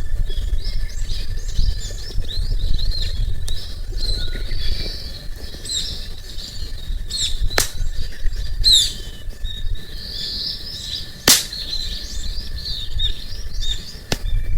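Small birds chirping and twittering again and again, with a few sharp pops from the crackling campfire, the loudest about eleven seconds in, over a low steady rumble.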